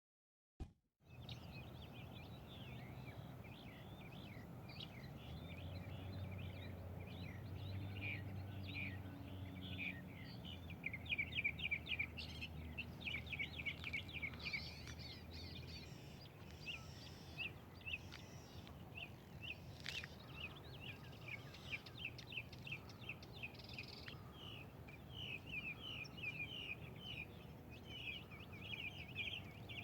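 Outdoor ambience of birds chirping in a fast, continuous chatter of short high notes, with a low hum underneath for part of the time.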